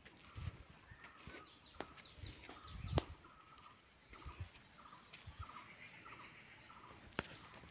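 Faint outdoor ambience of birds calling repeatedly in short chirps, with a few soft thumps, the loudest about three seconds in, and a sharp click near the end.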